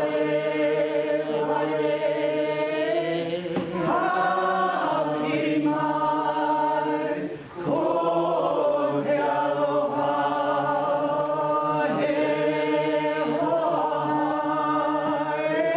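A group of voices singing together, a slow song of long held notes, with short breaks between phrases about four and seven seconds in.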